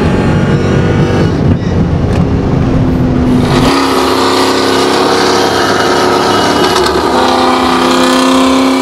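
Supercharged V8 engines of a Chevy SS and a Hellcat Charger running hard side by side, heard from inside one of the cars. The sound changes abruptly about four seconds in to a steady engine note.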